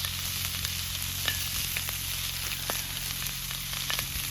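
Thick-cut bacon sizzling in a thick black-iron frying pan over a Swedish torch log fire, a steady frying hiss with scattered sharp pops.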